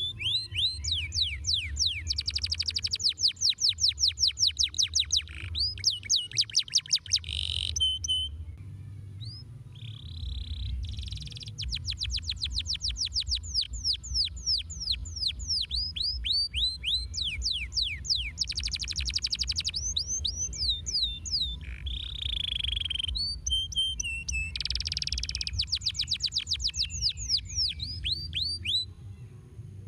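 Domestic canary singing: long rolling trills of rapid, repeated down-sweeping notes, broken by short pauses, stopping shortly before the end. A steady low hum sits beneath the song.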